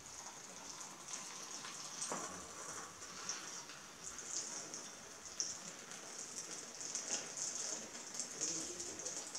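Hot chocolate pouring in a thin stream from a saucepan into a mug: a faint, steady trickling splash. There is a light click about two seconds in.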